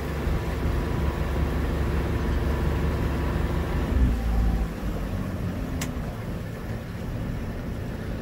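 Sailboat's inboard engine running under way, with wind buffeting the microphone. About four seconds in it swells briefly with a falling pitch, then runs quieter, and a single sharp click comes soon after.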